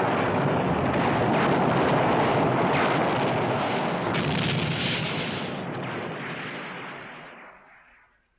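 Sci-fi sound effect of a warship blowing itself up: a dense, continuous explosion rumble with bursts of crackle in it, fading away over the last three seconds.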